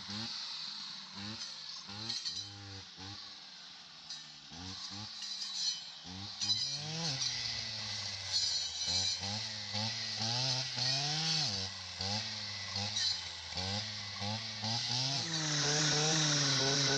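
Small two-stroke saw engine, a chainsaw or clearing saw cutting brush and trees, revved up and down again and again, its pitch rising and falling with the throttle. Near the end it settles into a steady, louder high-revving run.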